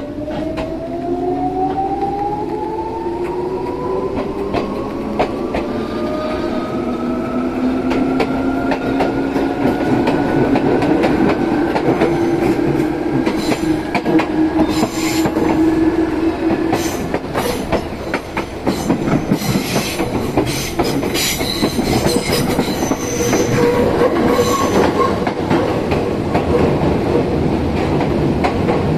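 Izu Kyuko 8000 series electric train, heard from inside the car, accelerating. Its traction motor whine is several tones climbing together in pitch for about the first seventeen seconds. The whine then fades out, leaving the rumble and clatter of the wheels over the rail joints as the train runs on.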